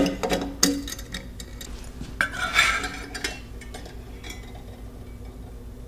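Metal parts being handled: a few light clinks and knocks, with a longer scraping rub about two seconds in.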